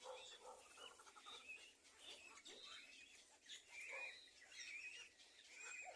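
Small birds chirping faintly: a run of short, high chirps that bend up and down in pitch, several a second.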